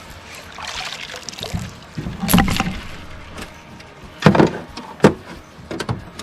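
Handling noises in a fishing boat: a few sharp knocks and thuds against the boat, the loudest a little after two seconds and about four seconds in, over faint water sounds.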